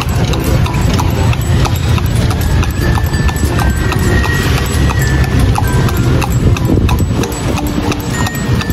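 Horse's hooves clip-clopping on an asphalt road as it pulls a delman carriage, the knocks coming quickly and continuously over a steady low rumble.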